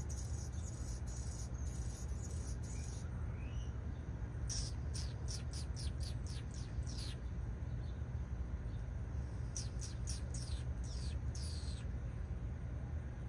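A songbird calling in quick runs of sharp, high notes that slide downward, about three a second, in two series with a pause between, over a steady low rumble.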